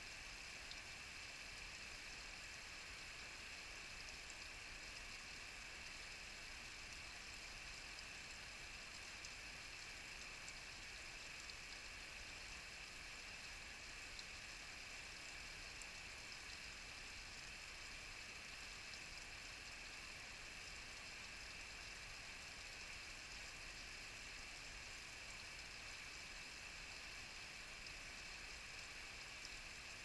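Small waterfall trickling and dripping off a mossy bank into a shallow rivulet: a faint, steady splashing hiss with scattered tiny drips.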